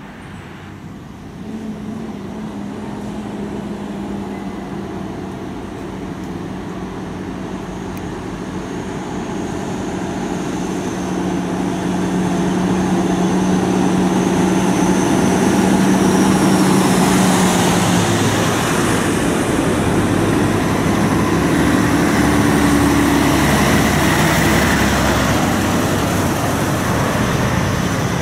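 Heavy diesel trucks in a convoy approaching and passing on a road, engines droning with a steady low tone and tyre noise, growing louder until about halfway through and staying loud as they go by.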